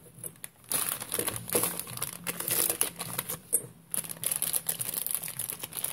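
Plastic crinkling and rustling as it is handled, with many sharp ticks among it. It starts about a second in and pauses briefly about two thirds of the way through.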